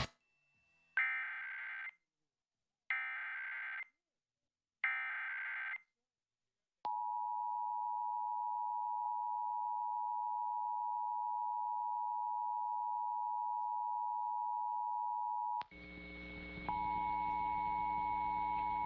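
Emergency Alert System test signal: three short bursts of the SAME digital header, each a buzzy, warbling data squawk about a second long, then the steady two-tone attention signal. About nine seconds in, the attention tone breaks off as a low hum and a higher steady tone come in, and the two-tone resumes a second later over the hum.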